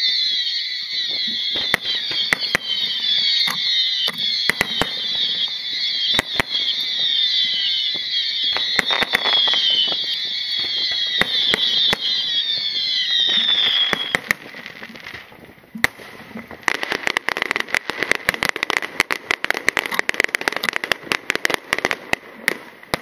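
Aerial fireworks display: sharp shell reports go off over a dense, shrill sound full of falling pitches. This gives way about 14 seconds in to a rapid crackling of many small reports that lasts until near the end.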